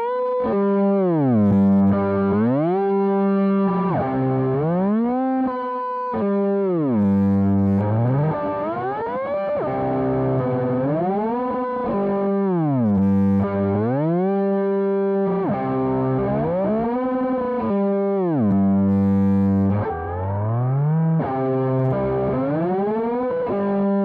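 Electric guitar played through the Zoom G5n multi-effects pedal's "Shifty" patch, a distorted pitch-shifting sound. Held notes repeatedly swoop down in pitch and glide back up, about every two to three seconds.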